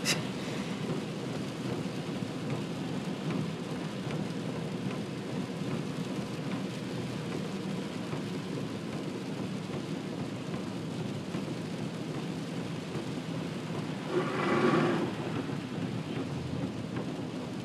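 Torrential rain falling steadily on a car's roof and windshield, heard from inside the cabin while driving, with a brief louder swell about fourteen seconds in.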